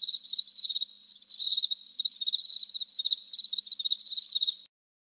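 Crickets chirping in quick pulsing trills, the stock comic sound effect for an awkward silence after a remark. The chirping cuts off abruptly shortly before the end.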